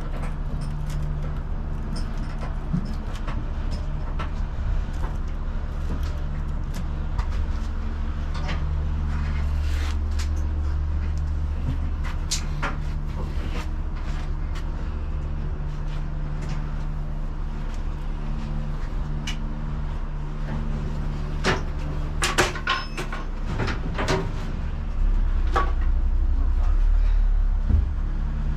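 Classic Mini engine being turned over on the starter without catching: a steady low drone, with scattered clicks and knocks and a cluster of louder knocks a little past two-thirds of the way through.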